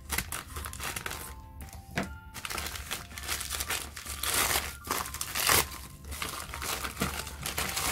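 Plastic mailer bag crinkling and rustling as it is handled and opened, with soft background music under it.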